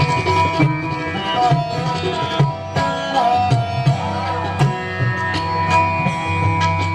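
Instrumental nagma in teentaal on a Roland Fantom X6 keyboard: a sitar-like melody with gliding notes over a steady tabla rhythm.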